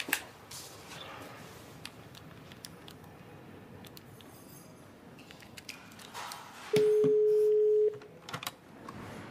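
Faint taps of a phone's keys being pressed, then about seven seconds in a telephone ringing tone over speakerphone: one steady mid-pitched beep about a second long, the call ringing at the other end.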